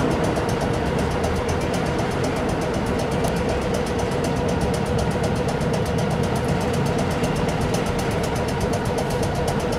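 A tram's equipment running steadily while the tram stands still: an even mechanical hum like an idling engine, with a fast, regular ticking over it.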